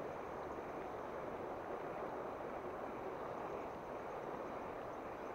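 Steady rush of a fast-flowing river, water running over a shallow rippled stretch.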